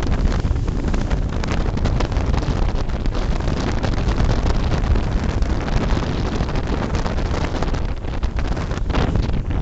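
Wind buffeting the microphone over the steady rush of seawater churning along the side of a boat at sea.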